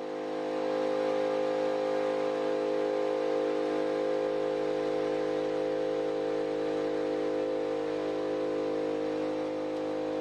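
A motor-driven machine running with a steady hum made of several steady tones; it swells over the first second, then holds even.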